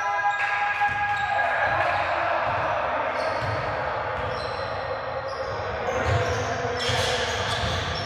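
Basketball game on a hardwood gym floor: the ball bouncing with low thumps, sneakers squeaking briefly, and players' voices calling out.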